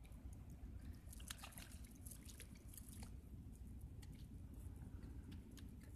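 Faint water dripping and small splashes, with scattered light clicks over a low, steady rumble.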